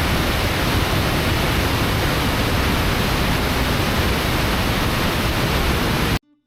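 Kisdon Force waterfall rushing steadily close by, an even, full hiss of falling water that cuts off abruptly near the end.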